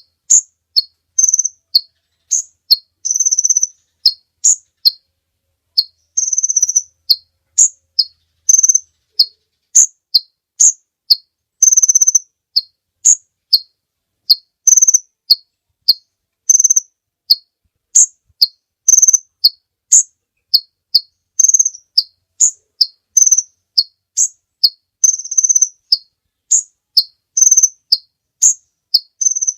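Kolibri ninja sunbird singing: a rapid string of sharp, high chirps, a few per second, alternating higher and lower notes and broken now and then by short buzzy trills. The call is of the loud, excited kind used as a training recording for caged songbirds.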